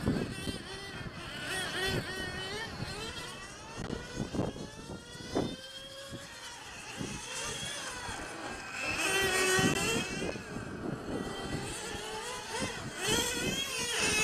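Several 1/8-scale nitro RC car engines running on track, their pitch rising and falling as the cars accelerate and brake through the corners.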